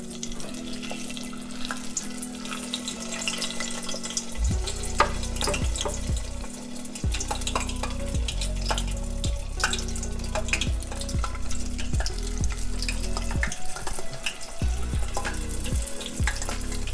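Rice-paper egg rolls deep-frying in a saucepan of hot vegetable oil: a steady bubbling, crackling sizzle. Background music plays underneath.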